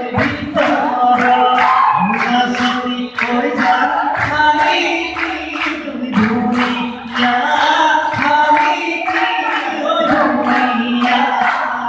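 Voices singing a song to a steady clapped beat, about two to three claps a second.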